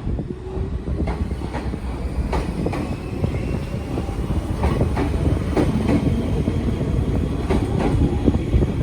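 Izuhakone Railway electric train, set 3506, pulling away and rolling past: its wheels clack irregularly over rail joints over a steady low rumble, getting gradually louder, with a faint whine rising in pitch.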